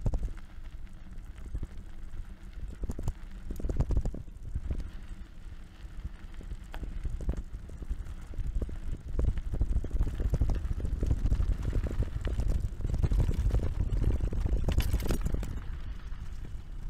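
Mountain bike rolling down a rough trail, picked up through a camera mounted on the handlebar: a low rumble with frequent knocks and rattles from the bumps. Wind buffets the microphone, louder from about nine seconds in.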